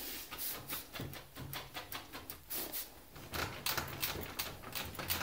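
Portable folding massage table being rocked by hand, its metal frame and joints giving a rapid, irregular run of clicks and creaks: the sign of a loose, unstable table.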